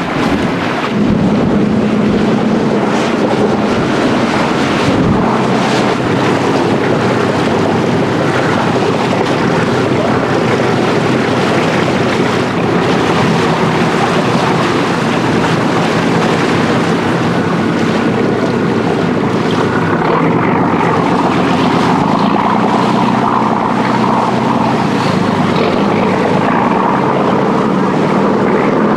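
Wind buffeting the microphone and water rushing along the ship's side, with the steady drone of a pilot boat's engine running alongside.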